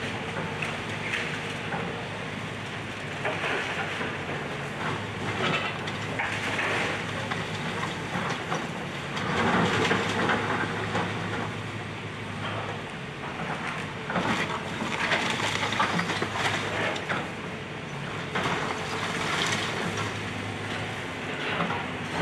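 Excavator demolishing a house: its diesel engine runs steadily while the bucket crushes and breaks up the building, with irregular bursts of crunching and cracking, loudest near the middle and again a little later.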